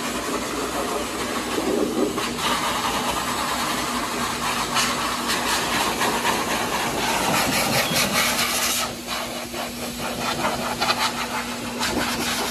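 Pet blow dryer running steadily: a loud rush of air over a steady motor hum, as the nozzle is worked over a wet puppy's coat. The air noise drops briefly about nine seconds in.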